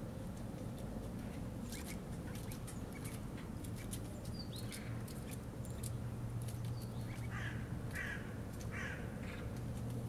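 A crow cawing several times in quick succession in the second half, over a steady low hum and scattered faint ticks.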